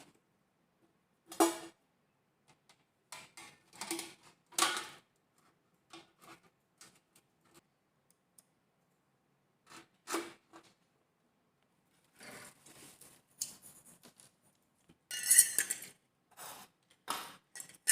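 Intermittent clicks, rustles and clatter of objects being handled, in short separate bursts with quiet gaps between, the loudest cluster about fifteen seconds in.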